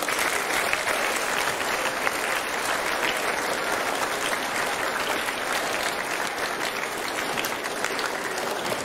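A large audience applauding steadily, the clapping of many hands blending together.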